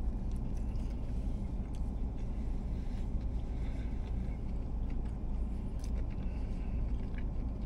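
Steady low drone of a car cabin with the car parked, with faint chewing and small mouth sounds now and then.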